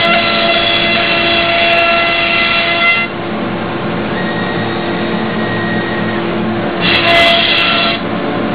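A 1325 wood CNC router running steadily with a constant whine. It grows louder and higher for the first three seconds, then again for about a second near the end.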